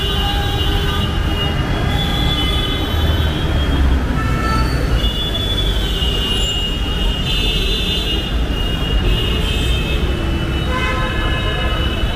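Delhi Metro train running: a steady low rumble with high, drawn-out wheel squeals that come and go.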